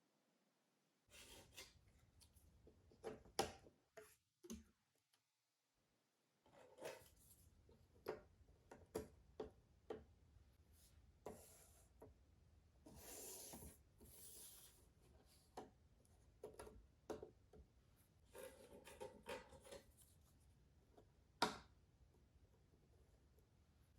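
Jigsaw puzzle pieces being handled, faint throughout: scattered light clicks and taps as pieces are picked up and set down. About halfway through come a couple of brief rubbing, sliding sounds.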